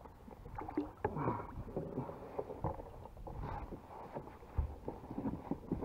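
Scattered knocks, taps and rustling of gear being handled against a plastic fishing kayak's hull, as things are moved about among the tackle.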